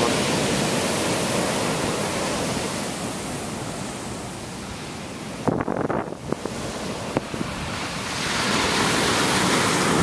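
Heavy ocean surf breaking on a sandy beach, a steady noisy rush of big waves with some wind on the microphone. The rush eases a little about halfway, with a few brief thumps, then swells again near the end as another wave breaks.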